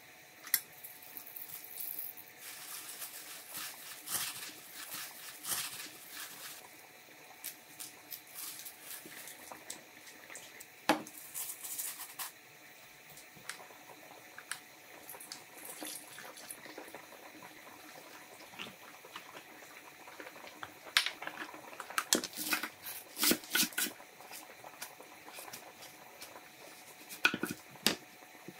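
Food preparation sounds: liquid seasoning drizzled from a spoon onto cabbage in a stainless steel bowl, dry powder poured into a steel bowl, and scattered sharp clinks and knocks of utensils on steel.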